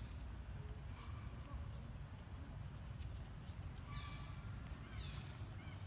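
Short, high-pitched animal chirps, repeating roughly every one and a half seconds, over a steady low rumble.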